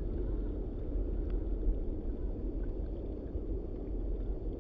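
Steady low rumble with a wash of noise and no distinct events.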